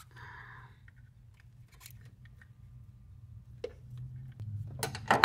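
Crimp pliers squeezing a metal crimp clamp onto a rubber power-steering return hose. A short rasp at the start, then scattered small clicks, and a couple of sharp metallic clicks near the end, which are the loudest.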